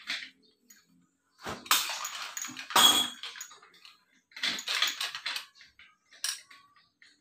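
Metal clanking and rattling of a steel rocker-arm shaft assembly being seated on a Mitsubishi L300 diesel cylinder head and a long socket wrench being fitted to its bolts. Two bouts of clatter, about a second and a half in and again near four and a half seconds, then a single sharp click a little after six seconds.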